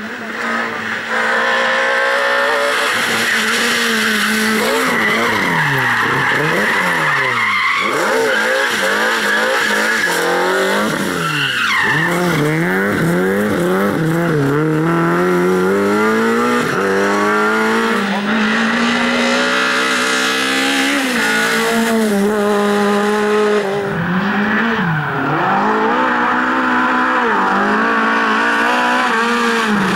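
Lada rally car engine revving hard, its pitch climbing and dropping over and over through gear changes and lifts, with tyre squeal as the car slides sideways.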